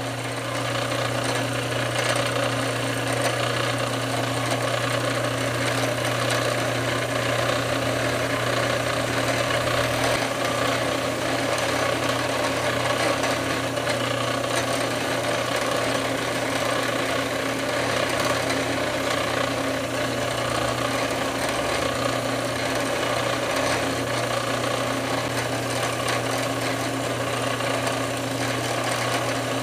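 An electric power tool, of the kind used to grind, sand or polish rusty metal, running steadily without a break, with a constant low hum under a rough, noisy whirr.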